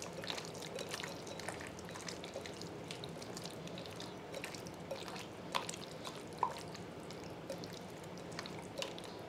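A hand squishing and kneading raw chicken pieces in a creamy green marinade in a glass bowl: faint wet squelching with scattered small clicks.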